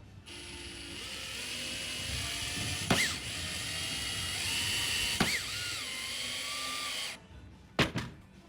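Electric power tool running with a steady whine for about seven seconds, shifting pitch twice with a sharp click each time, then stopping abruptly, followed by a couple of clicks.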